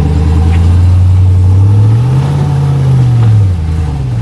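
Off-road vehicle's engine working at low revs while crawling over rocks, revving up briefly about two seconds in and settling back.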